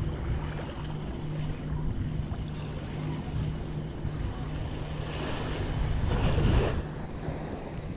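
Small shore waves lapping at the water's edge with wind buffeting the microphone; a louder wave washes up about five seconds in. A faint steady low hum runs underneath.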